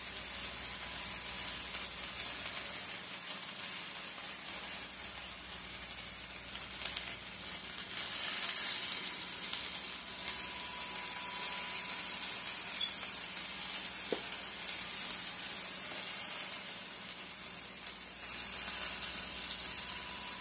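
Diced potatoes frying in hot grease in a cast-iron skillet on high heat: a steady crackling sizzle that grows a little louder about eight seconds in.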